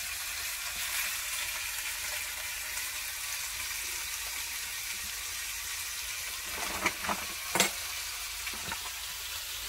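Oxtail pieces searing in hot fat in a steel pot on a gas burner: a steady sizzle, the browning stage of a braise. A few light knocks about seven seconds in.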